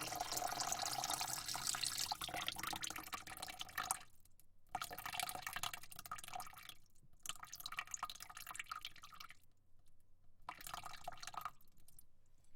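Water spraying into a bucket: a steady spray for the first few seconds, then it stops and starts again in several short spurts with brief silent pauses.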